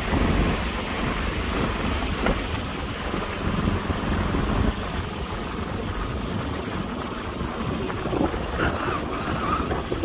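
Motorbike running along a rough gravel track, heavily masked by steady wind buffeting the microphone.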